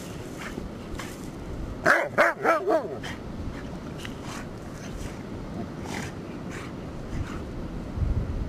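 Dogs playing, with a quick run of four or so short barks about two seconds in.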